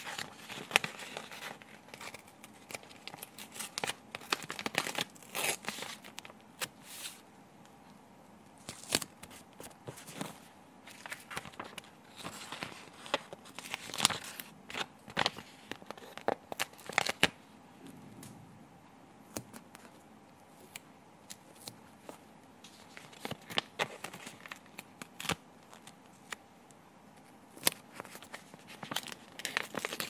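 Stickers being peeled off a glossy sticker sheet, with the sheet's backing paper crinkling as it bends; irregular rasping peels and sharp crackling clicks, some louder than others.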